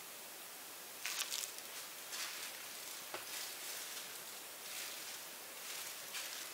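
Soft rustling and handling noises, a few at a time, from a person moving about at the work table, over a steady background hiss. There is a small tap about three seconds in.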